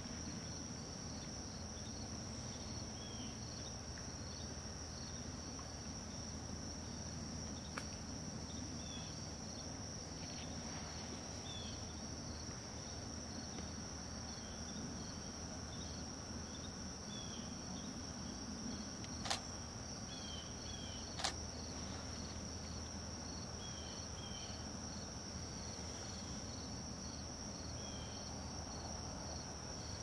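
Crickets trilling in a steady, continuous high-pitched chorus, with scattered faint short chirps. Two sharp clicks stand out about two seconds apart past the middle.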